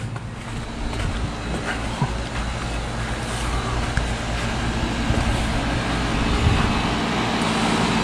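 Carrier Comfort heat pump outdoor unit running in heat mode: a steady hum of the compressor and outdoor fan, growing louder toward the end.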